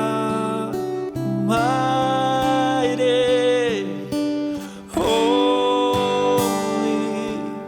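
Worship band music: a live worship song with long held, wavering notes over a steady accompaniment, in phrases with a short break about four to five seconds in.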